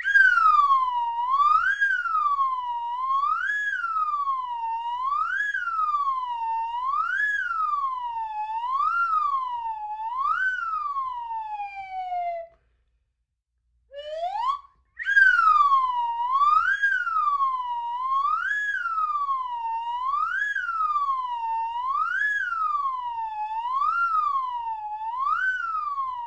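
Slide whistle played in slow swoops, its pitch rising and falling about once every two seconds. About halfway through it slides down and stops for a couple of seconds, then comes back with a quick upward slide and the same swoops.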